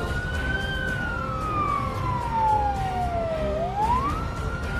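A wailing siren: the pitch holds high, falls slowly over nearly three seconds, then rises quickly again about three and a half seconds in.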